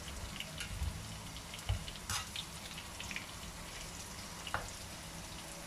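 Chicken pieces and curry leaves frying in oil in a non-stick wok, a steady sizzle, with a few light clicks and scrapes of a metal slotted spatula as they are stirred.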